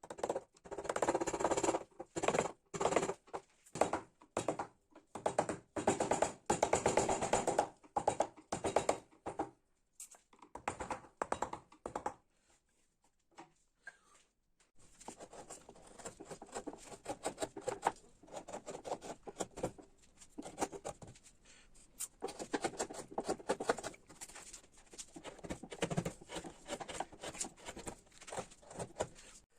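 Hand carving chisels cutting into ash wood: irregular runs of quick scraping, chipping cuts with short pauses between them, and a longer lull about ten seconds in.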